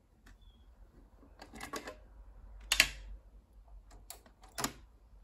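Mechanical clicks and clacks of a Dual C844 cassette deck's cassette compartment being opened and the tape cassette taken out. There is a cluster of clicks, the loudest clack about two and a half seconds in and another sharp one near the end.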